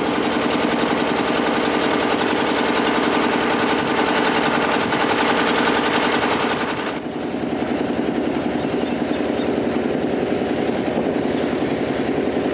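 A small engine running with a rapid, even chugging. About seven seconds in, the hiss above it drops away suddenly while the chugging carries on.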